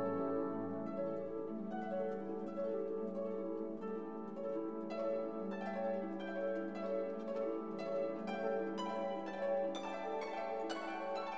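Instrumental background music: short plucked string notes over held low notes, the plucked notes growing busier in the second half.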